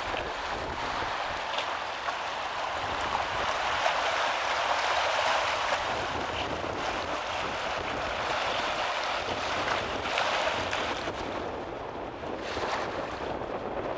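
Small waves washing in over rocks and sand at the water's edge: a steady hiss of surf that swells twice, with wind buffeting the microphone.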